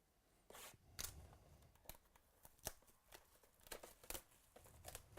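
Faint, scattered clicks and rustles of a box of football trading cards being opened and its packs handled.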